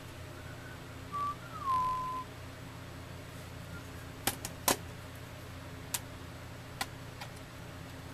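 A short whistled note, then a second one that slides down in pitch and is held briefly. Later come a few sharp plastic clicks and taps from the laptop's case being handled, the loudest a pair of clicks about halfway through.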